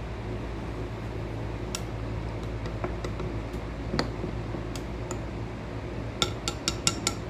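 Hard objects clinking and tapping, with a quick run of about six clinks near the end, over a steady low hum.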